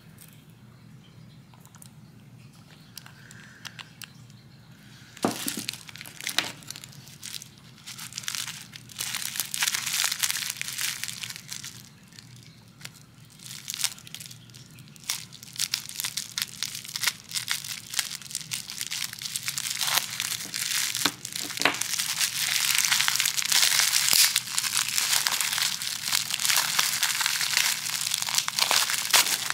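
Plastic bubble wrap crinkling and crackling as it is cut with small scissors and pulled off a nail polish bottle, with sharp clicks among the rustle. It starts about five seconds in and gets denser and louder toward the end.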